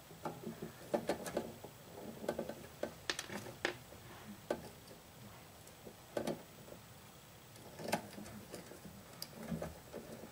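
Faint, irregular small clicks and rustles of electrical wires being handled and a plastic twist-on wire connector being screwed onto the joined hot leads.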